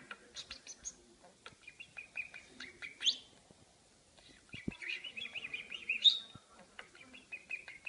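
Pet budgerigar chattering in a continuous warble, with a sharp rising chirp about three seconds in and a louder one about six seconds in.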